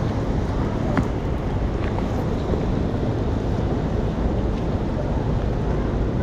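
Steady street noise in the rain: city traffic rumbling and wind buffeting the microphone, with one short click about a second in.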